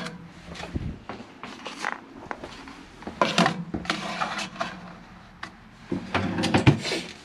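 Aluminum meal-kit trays clattering and knocking as they are handled and set into a countertop oven. The knocks come in a few short clusters, the busiest about three seconds in and again near the end.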